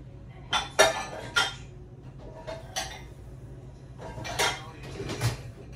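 Dishes and cutlery clinking as they are handled and set down at a kitchen counter: about six sharp, ringing clinks spread over the few seconds, the loudest about a second in.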